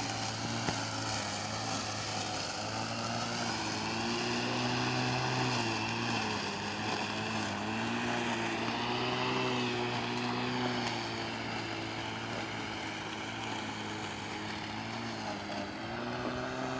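Battery-powered walk-behind lawn mower's brushless motor and blade running, a steady hum whose pitch sags briefly a few times as the blade takes load in the grass.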